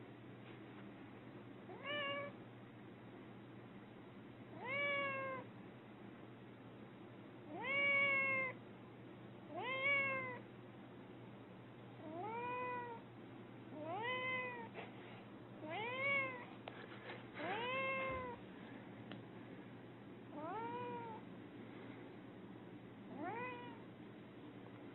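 A cat meowing over and over: about ten separate meows a couple of seconds apart, each rising and then falling in pitch.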